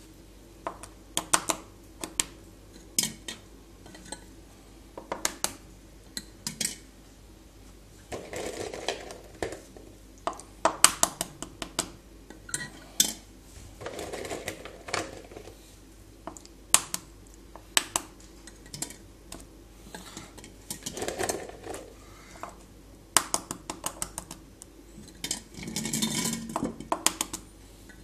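Boiled quail eggs clicking and knocking against a glass jar and against each other as they are put in by hand, in irregular sharp taps, with a few brief duller scuffing sounds between them.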